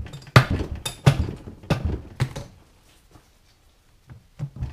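Cast-iron cover of a Farmall Super M hydraulic Lift-All unit knocking and clunking on its housing as it is worked loose from its gasket: about five heavy knocks in the first two and a half seconds, then a pause and a few lighter knocks near the end.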